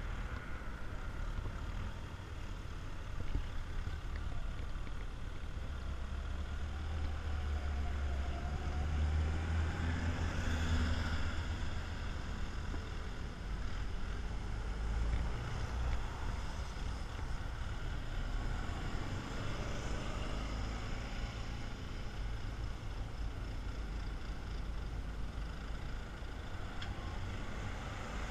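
Vehicles driving past one after another, among them an old military jeep and a small army truck as well as ordinary cars. Their engines and tyres on the asphalt make a continuous rumble that swells and fades as each goes by, loudest around ten seconds in.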